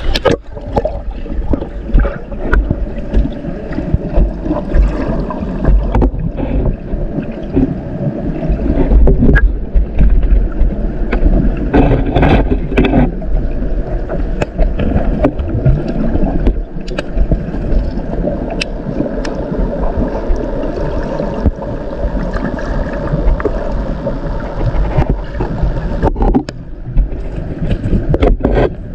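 Muffled rushing and rumbling of stream water heard through a camera held underwater, with scattered clicks and knocks of pebbles and stones moved by a hand on the stream bed.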